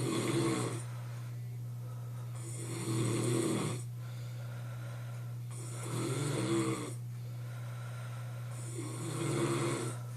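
A man snoring in his sleep: four heavy snores about three seconds apart, each a rough, rattling breath, over a steady low hum.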